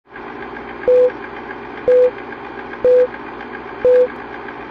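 Film-leader countdown sound effect: a steady whirring clatter like a running film projector, with a short single-pitched beep once a second, four times.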